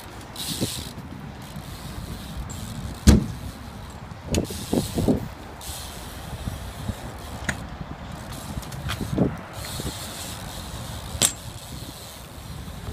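BMX bike riding on concrete: a steady low rumble of tyres rolling, with a sharp clack about three seconds in, a quick cluster of knocks a second or two later, and further single knocks near the nine- and eleven-second marks.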